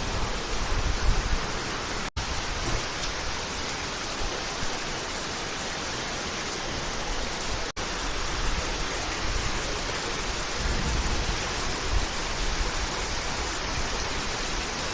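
Heavy rain pouring down in a steady, dense hiss. The sound cuts out for an instant twice.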